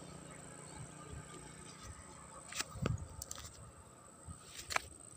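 Faint outdoor background with a few short rustles and clicks, a cluster about three seconds in and one more near the end, from grass and leaves being brushed and stepped through.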